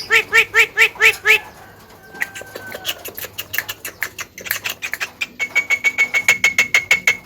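Javan myna calling: a fast run of harsh, nasal notes, about four a second, then a quieter stretch with a few thin whistles, and near the end a rapid series of clicking notes over a held high whistle.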